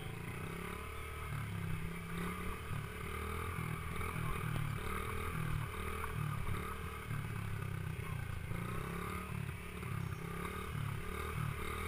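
Small dirt bike engine running at low speed, heard from a handlebar-mounted camera, its note surging and dropping every half second or so as the throttle is worked.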